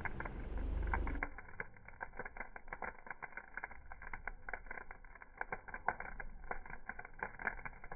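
Wood-and-coal campfire crackling with many small irregular pops as it is fanned to feed it oxygen, after a low rushing sound that stops about a second in.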